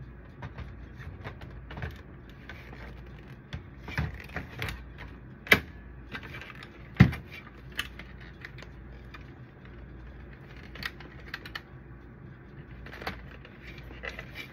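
Hard plastic clicks, taps and knocks as a copier drum unit is handled and its parts fitted together, with two louder knocks midway, over a low steady hum.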